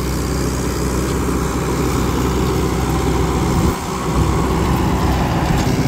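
Mahindra 595 DI Turbo tractor's diesel engine running steadily under load while it drives a rotavator through the soil, its exhaust fitted with a quiet silencer. The sound dips briefly a little past halfway.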